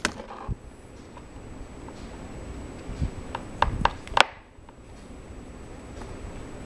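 Air-tool quick-connect fitting being screwed in by hand: light rubbing, with a handful of small clicks and knocks from about three seconds in, the last the loudest.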